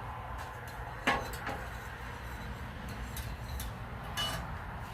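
Kitchen clatter of dishes and utensils over a steady low hum: a sharp knock about a second in with a smaller one just after, light clinks around three seconds, and a knock with a brief ring a little after four seconds.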